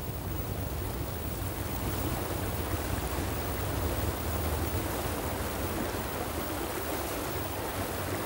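Seasonal river in spate after rains: brown floodwater rushing steadily down a wide stony riverbed.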